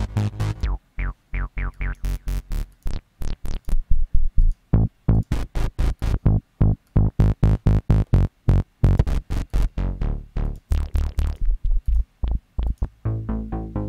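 Sylenth1 software synthesizer playing a fast pattern of short, separate notes from a looped MIDI arpeggio, its tone changing several times as bass presets are tried out.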